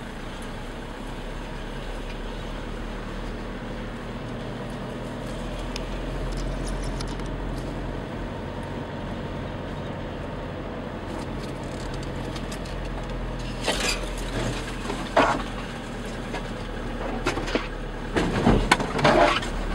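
Steady low rumble of a vehicle driving slowly off-road, heard from inside the cab, with a string of knocks and rattles in the last several seconds as it jolts over rough ground.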